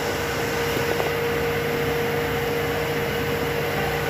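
Steady mechanical hum with a steady mid-pitched tone running through it, like ventilation or pump machinery, and a couple of faint ticks about a second in.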